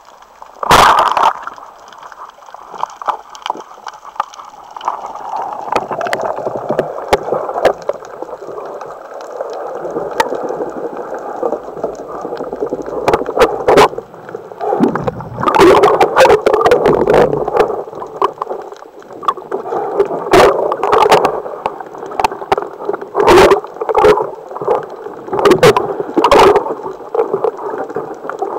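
Muffled underwater noise heard through a camera's waterproof housing: water rushing and sloshing as a diver moves. Sharp knocks and clicks come throughout, the loudest about a second in and several more in the second half. These fit the speargun and shaft knocking as a gilthead sea bream is shot and fought on the spear.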